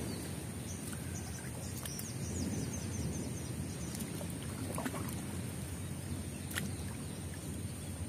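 Pond water sloshing and splashing around a person wading knee-deep while hauling in a float-lined fishing net by hand.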